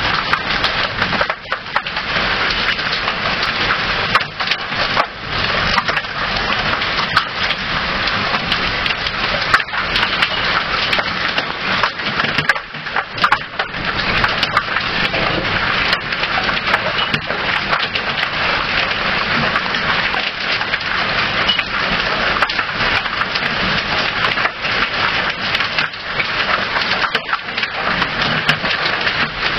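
Hailstorm: hail and heavy rain falling hard, a dense, steady clatter of countless small impacts.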